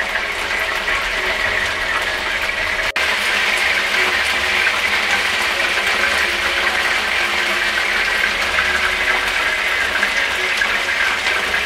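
Battered lote fish (Bombay duck) pieces sizzling steadily in hot oil in a frying pan as they shallow-fry.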